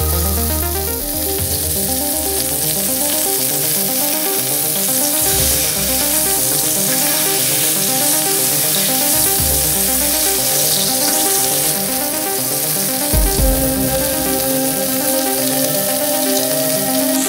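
Cod fillet frying in hot oil and butter in a pan: a steady sizzle, over background music with steady tones and a repeating pattern.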